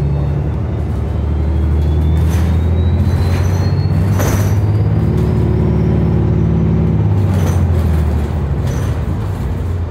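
City bus running, heard from inside the cabin: a steady low engine drone with a faint whine that rises in pitch over the first half. Several brief sharp noises come through along the way.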